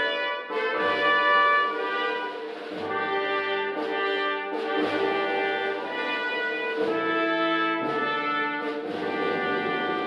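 Instrumental music: held chords that change every second or so, with a low bass note sounding under them about every two seconds.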